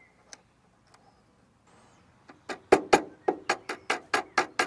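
Plastic cable tie being pulled tight around a rubber suspension dust boot: a couple of lone clicks, then from about two seconds in a quick run of sharp ratchet clicks, about five a second.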